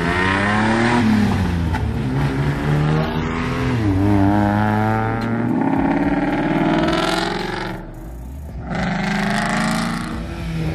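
Car engines revving and accelerating past one after another, pitch climbing and dropping with each car; a short lull about eight seconds in before another car accelerates.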